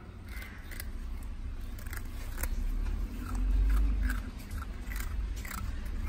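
Puppies biting and crunching dog biscuits: a string of short, sharp crunches over a low rumble that swells in the middle.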